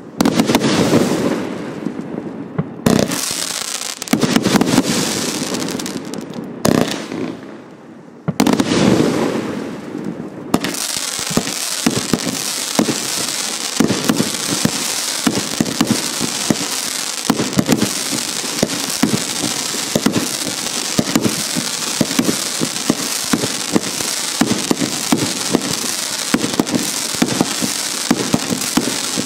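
A 174-shot compound firework cake firing. The first ten seconds or so bring a handful of heavy bursts, each with a long fading rumble. It then settles into a dense, steady stream of rapid small shots over a hiss.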